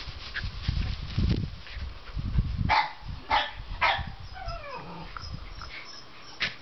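A young dog gives three short, sharp barks about half a second apart, then a falling whine. A low rumble runs under the first couple of seconds.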